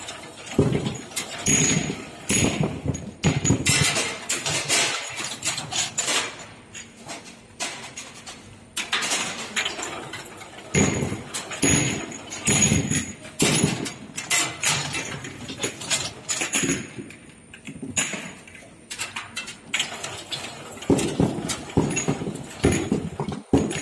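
Ultrasonic bottle washing machine running on small round glass bottles: irregular clattering and knocking, coming in uneven noisy bursts every half second to a second.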